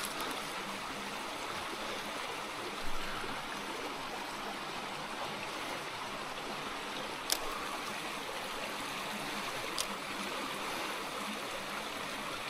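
Small stream of water spilling from a culvert outlet into a creek pool, a steady splashing trickle. A soft knock and a couple of brief clicks sound over it.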